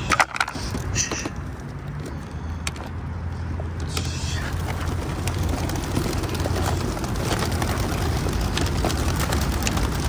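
Plastic pigeon-crate lids clattering as they are flipped open, sharpest about half a second in, then a few lighter knocks over a steady low rumble.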